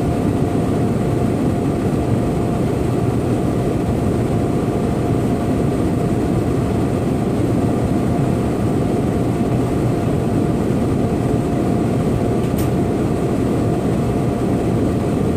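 Steady low mechanical rumble with a constant hum running through it, and a single sharp click near the end.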